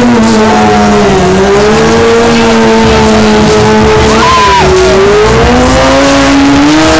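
Stunt sport motorcycle engine held at high revs during wheelie stunts, its pitch slowly rising and falling as the throttle is worked.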